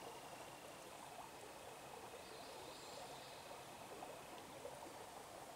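Faint, steady rush of a shallow river running over a riffle, with a thin, steady high tone alongside that stops about four seconds in.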